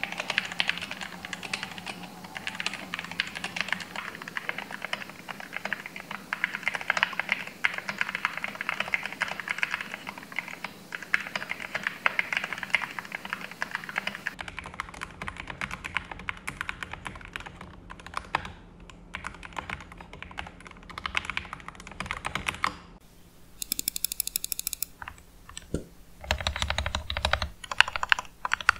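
Fast typing on a GK61 mechanical keyboard with Gateron optical red linear switches: a rapid, continuous run of key clacks. About halfway through it changes to the same board after modding, with lubed switches, foam and tape mods and PBT keycaps. Near the end it is picked up through a headphone microphone.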